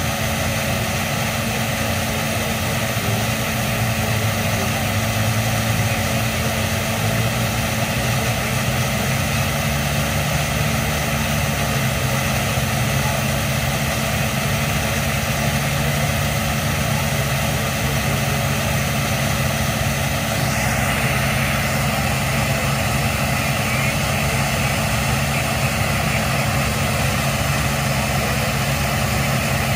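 Jet turbine engine of a pulling tractor running steadily at the start line. Its low drone rises in pitch about a quarter of the way in, and a higher hiss and whine grow louder about two-thirds of the way in as it spools.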